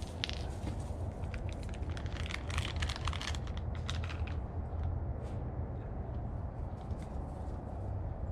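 Quick clicks and crackles of a motorcycle turn-signal bulb and its plastic socket being worked by hand as the old bulb comes out, thick in the first few seconds and then sparse, over a steady low rumble.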